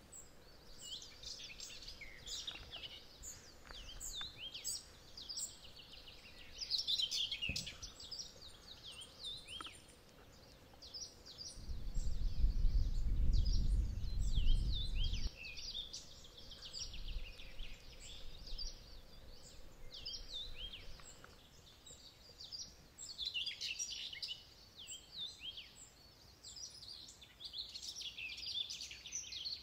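Small birds chirping, many short calls overlapping throughout. About halfway through, a deep rumble lasts about three or four seconds and is the loudest sound.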